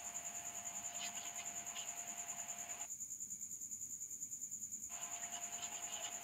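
Faint background tone: a steady, rapidly pulsing high-pitched trill runs throughout, over a lower steady hum that drops out for about two seconds midway.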